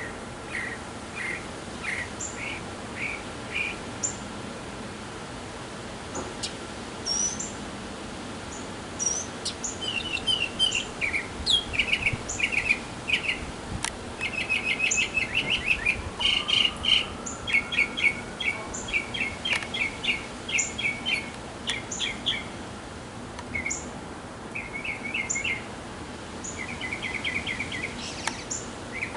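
Northern mockingbird singing: a string of varied chirping phrases, each note repeated several times in quick succession, growing busier about a third of the way in. A thin high note repeats every second or two alongside.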